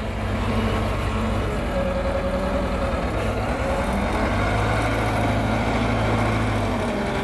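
Diesel engine of a heavy road-construction machine running steadily with a low, even hum and a faint whine.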